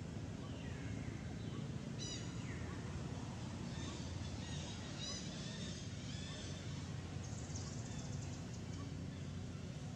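Forest ambience: birds calling with short, falling chirps, once about two seconds in and several times around the middle, with a brief rapid rattle a little later, over a steady low rumble.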